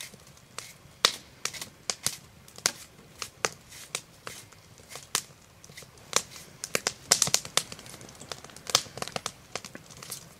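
Raw onion being broken apart by hand, its layers snapping off with crisp irregular cracks and crackles, a few pieces at a time.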